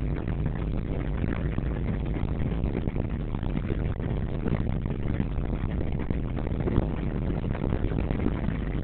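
Car driving along a paved road, heard from inside the cabin: a steady rumble of engine and tyres.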